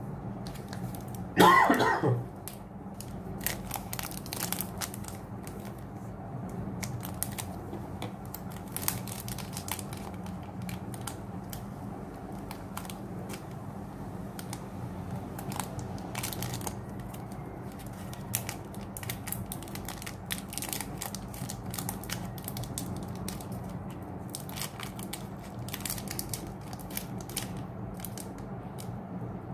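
Hands crinkling and handling a foil Pokémon trading-card booster pack wrapper: scattered crackles, rustles and light taps over a steady low hum. A short, loud vocal sound comes about a second and a half in.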